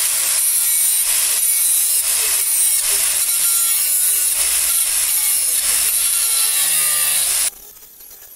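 Angle grinder running against steel, a loud steady grinding hiss that cuts off abruptly about seven and a half seconds in.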